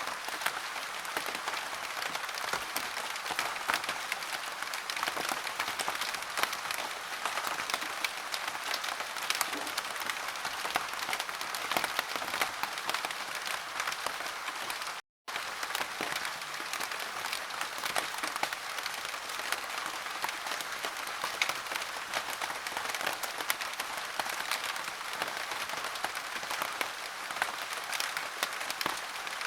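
Steady, dense rain with a thick patter of drops, cut off for a split second about halfway through.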